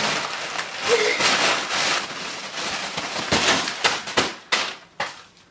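A plastic mail-order shipping bag being pulled and torn apart by hand: loud crackling and rustling, breaking into a few sharp rustles that die away near the end.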